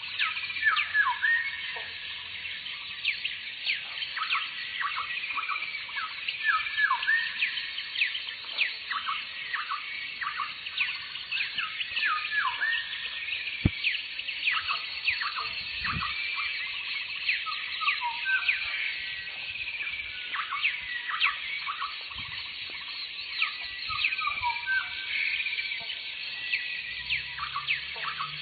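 A dense chorus of many birds chirping and calling, full of short falling whistles that overlap without a break.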